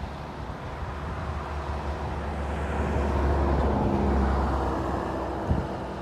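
Engines of a low-flying firefighting aircraft passing over the sea, swelling to a peak three to four seconds in and then fading, with wind rumbling on the microphone.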